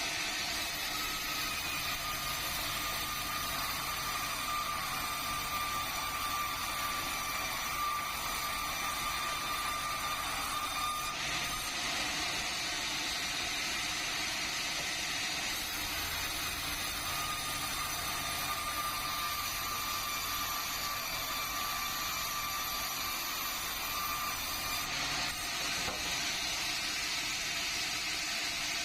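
Sawmill saw running steadily, cutting meranti timber into boards and beams, with a steady high tone that sets in twice for several seconds at a time.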